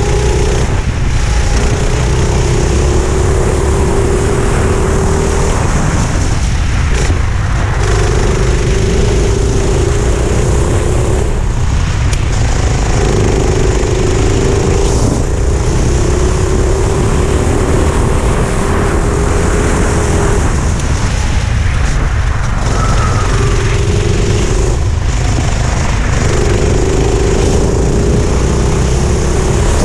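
Four-stroke kart engine, heard onboard, running hard on track: its pitch climbs slowly along each straight and drops away briefly as the throttle is lifted for the corners, several times over.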